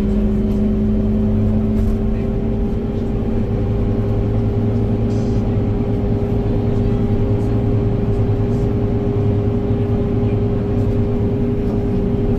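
Scania K230UB city bus's diesel engine running under way, heard from inside the cabin as a steady low drone and rumble that rises slightly in pitch.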